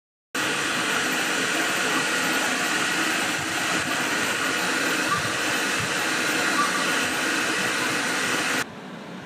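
Sovol Zero 3D printer running a print: a steady, loud whir of its fans with a few steady whining tones. It starts suddenly just after the start and drops abruptly to a quieter whir near the end.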